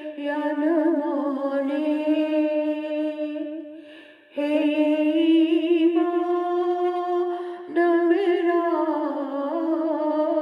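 A woman's voice chanting a devotional munajaat in long, drawn-out held notes with a slow waver, breaking off briefly about four seconds in and coming back louder near eight seconds.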